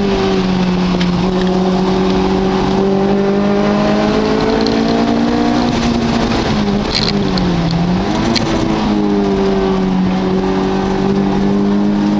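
A car engine runs hard at steady high revs as the car is driven round a race track. About seven seconds in the engine note sags for a moment, then climbs back up, with two short clicks around the dip.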